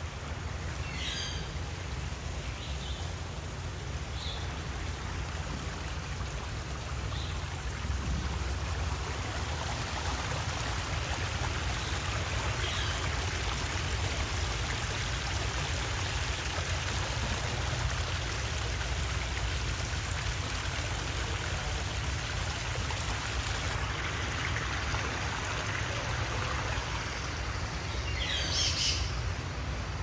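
Steady water noise with a few short bird chirps over it, the clearest one about two seconds before the end.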